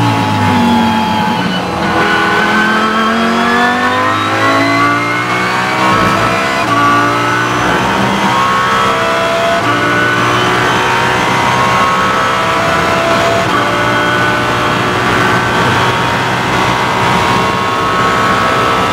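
Lamborghini Huracán GT3 EVO race car's naturally aspirated V10 heard from inside the cockpit at full throttle. The pitch dips briefly near the start, then climbs through the gears in long rising sweeps, dropping back at each quick upshift.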